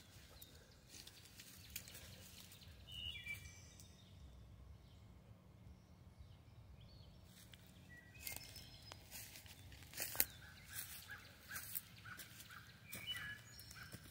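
Quiet woodland ambience with birds chirping in short calls a few times, and a run of sharp crunching clicks near the middle and end, like steps or handling on dry leaf litter and sticks.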